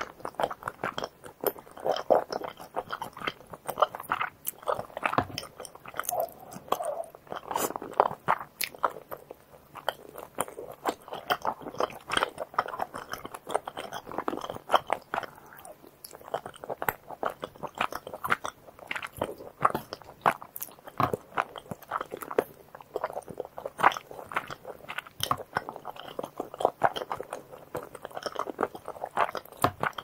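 Close-miked chewing of rosé tteokbokki, the rice cakes chewed in the mouth, with many short sharp clicks throughout.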